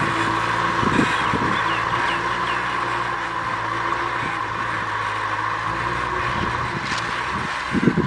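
Kubota M6040SU tractor's diesel engine running steadily under load, pulling a disc plough through the soil. Irregular low rumbling bursts set in near the end.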